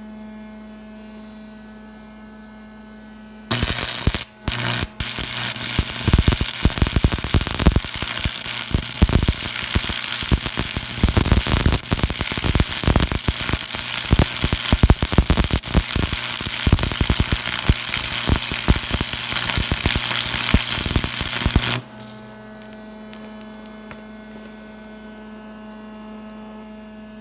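Electric arc welding on steel angle iron: a loud, dense crackle that starts about three and a half seconds in, breaks off briefly, then runs for about eighteen seconds before stopping. Before and after it, a steady electrical hum.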